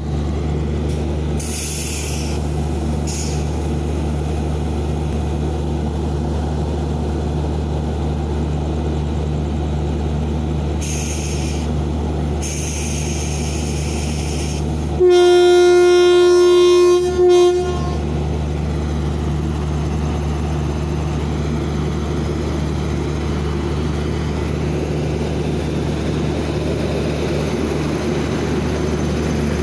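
Indian Railways locomotive passing close by with a steady low hum and a few short high hisses. About halfway through it sounds its horn in one long, steady blast of about two and a half seconds, then gives a short toot.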